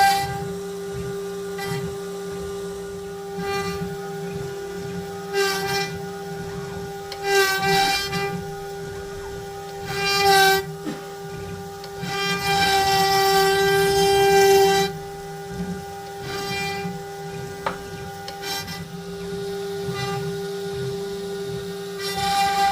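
CNC router spindle running with a steady whine while its bit carves wood. The sound grows louder and harsher several times as the cut bites in, for about three seconds the longest.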